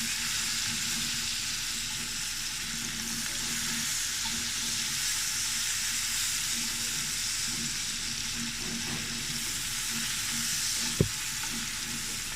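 Chopped onion sizzling steadily as it fries in hot oil in a pan, with one sharp knock near the end.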